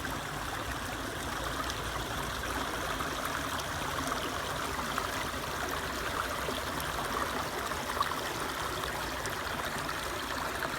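A small stream of running water flowing steadily.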